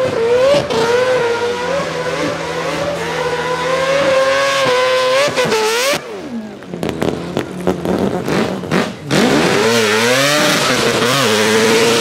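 Mazda RX-7 FD3S's naturally aspirated, peripheral-ported 26B four-rotor engine screaming at high revs while drifting, with the revs swinging up and down. About halfway the revs drop and there is a string of sharp cracks, then the engine climbs back up.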